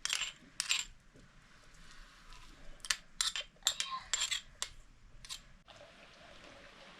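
Dishes and metal utensils clinking and knocking in a string of sharp, irregular clicks. It cuts off suddenly near the end to a steady hiss.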